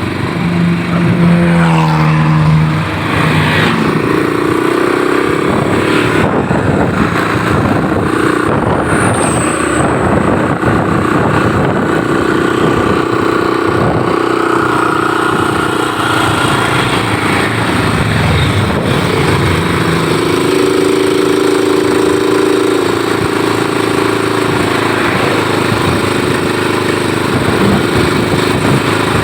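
A bus's diesel engine runs under way with road and traffic noise. Its pitch falls during the first few seconds, then holds steady. No basuri horn sounds.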